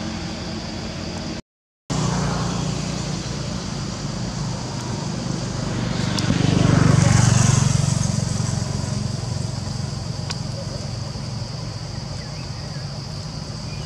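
A motor vehicle passing by: a steady low engine and traffic hum that swells to a peak about seven seconds in and then fades. The sound cuts out completely for a moment about a second and a half in.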